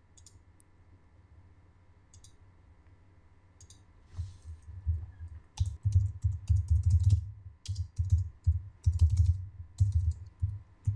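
Typing on a computer keyboard: after a few seconds of near-quiet room tone, an irregular run of key presses with dull thuds begins about four seconds in.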